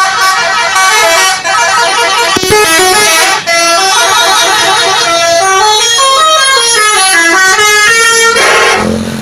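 Telolet multi-tone musical bus horn of a Pandawa 87 coach playing a fast tune of stepped notes, falling and rising again in the middle. A deeper horn note sounds near the end.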